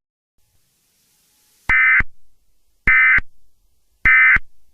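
Emergency Alert System end-of-message data tones (SAME "NNNN" EOM): three short bursts of digital data tone, each about a third of a second long and a little over a second apart. They signal that the alert message has ended.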